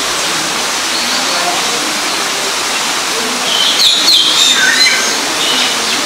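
Steady rush of running water, with a few short, high bird chirps about three and a half to five seconds in.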